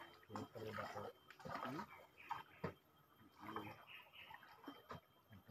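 Faint, indistinct voices of men talking, with a single sharp tap about two and a half seconds in.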